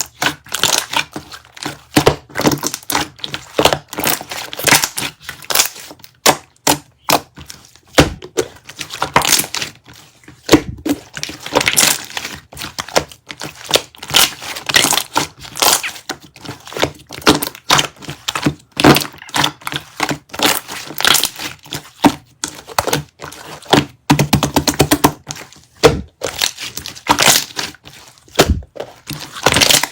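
Close, continuous handling noise: rapid irregular clicks, taps and crinkling, like objects being tapped and packaging or paper being handled.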